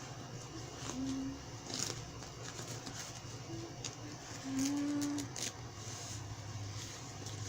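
Crinkling and light clicks of a disposable diaper being fastened and handled, over a steady low hum. A few short, low hummed notes come about a second in, around three and a half seconds, and at about five seconds, the last one the loudest.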